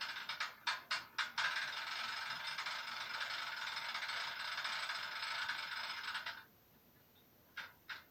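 Diesel engine sound from the sound decoder of a Piko N-scale BR 221 model locomotive, played through its tiny speaker with no bass. Quick chugging pulses, about five a second, merge after a second and a half into a steady full-throttle running sound. This cuts off abruptly about six seconds in, and two short blips follow.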